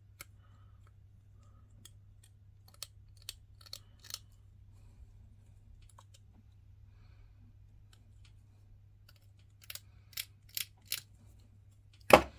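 Hobby knife blade scraping a hard plastic miniature part in short strokes, heard as a scatter of light clicks and scratches, with a quick run of four near the end and a louder click just before it ends.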